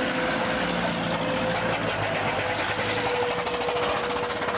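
Antique car's engine running with a rapid, even beat, with a steady tone held through most of it.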